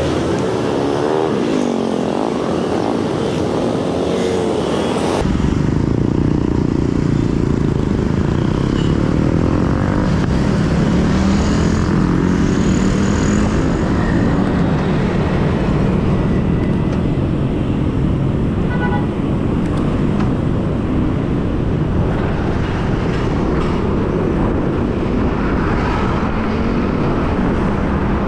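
Motorbike and scooter engines running and revving close by in street traffic, their notes rising and falling, over a low wind rumble on the microphone of a moving bicycle. The sound changes abruptly about five seconds in.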